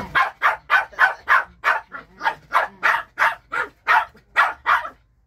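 Shih Tzu puppy barking rapidly and repeatedly, about three short barks a second, in play at a hand waved in front of it. The barks stop shortly before the end.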